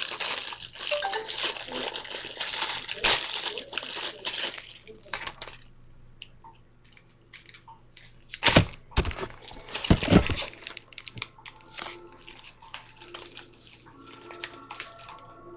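Plastic and paper popcorn packaging crinkling as it is unwrapped and handled, dense for the first few seconds and then sparser. This is followed by a couple of loud knocks partway through, and faint steady tones near the end.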